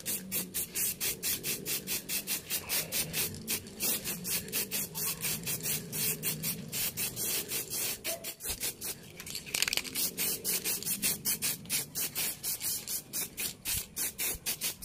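Aerosol spray can of Sherlux Art Yellow quick-drying acrylic lacquer hissing as it sprays paint, the hiss pulsing rapidly at about five pulses a second.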